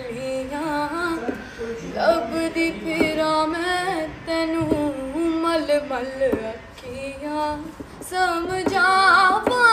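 A woman singing a song unaccompanied, holding long notes with wavering ornamental turns, louder near the end.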